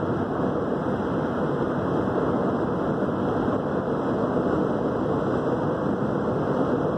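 Steady road and tyre noise of a car cruising at highway speed, heard inside the cabin: an even, low noise with no distinct engine note.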